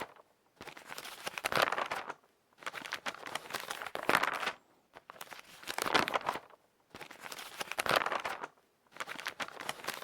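Repeated crinkling, rustling noise in five separate bursts, each a second and a half to two seconds long, with short pauses between them.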